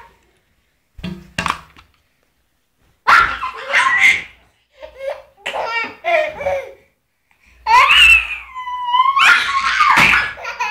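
Baby laughing in several choppy bursts from about three seconds in, with a long, high drawn-out squeal about two-thirds of the way through.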